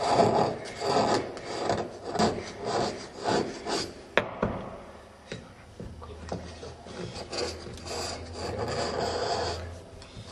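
Steel chisel scraping into Ogatsu slate as an inkstone's well is hand-carved, in short rasping strokes about twice a second. There is a sharp click about four seconds in, and the strokes are softer after it.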